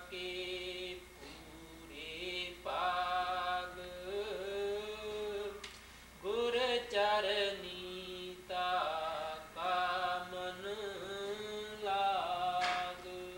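A man chanting a devotional verse unaccompanied. He holds long notes that waver in pitch, phrase by phrase with short pauses between them.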